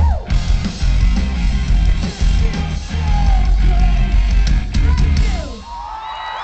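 Live rock band playing loudly, with pounding drums, distorted guitars and yelled vocals. At about five and a half seconds the band stops, and the crowd's cheering and whistling takes over.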